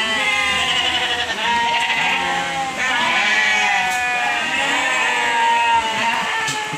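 A flock of penned sheep bleating, many calls overlapping almost without a break.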